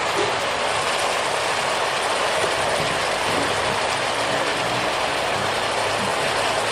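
Steady sizzling hiss from seasoned turkey, onions and pepper cooking in their own juices in a steel pot on an electric stove, with no water added yet.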